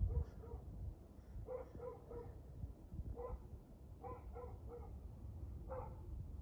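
A dog barking: short barks in small clusters of two or three, about six or eight in all.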